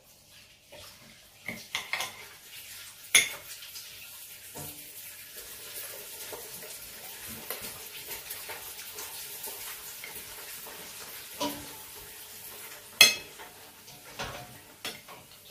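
Metal knife and fork clinking and scraping against a plate while cutting fried pork. There are two sharp clinks, one about three seconds in and one near the end, with softer scraping in between.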